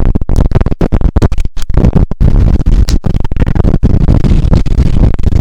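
Wind buffeting an action camera's microphone: loud, distorted low rumble with irregular crackling.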